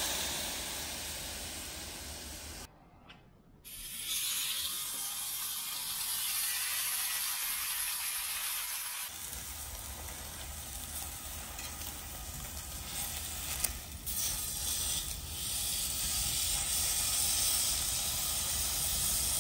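Steaks frying on a hot flat griddle over a portable gas stove: a steady sizzle, broken off for about a second near the start.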